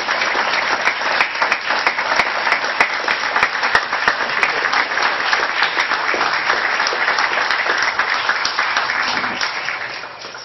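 Audience applauding, many hands clapping steadily, then dying away near the end.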